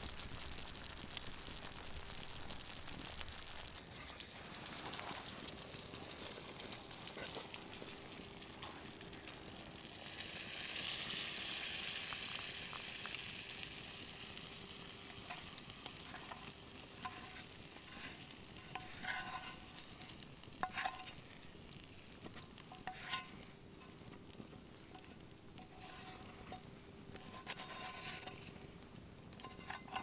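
Food sizzling and bubbling in a frying pan over a wood fire, the sizzle swelling loudly about ten seconds in and fading after. In the second half come scattered sharp clicks and knocks as the pan is tipped and the food poured out into a wooden bowl.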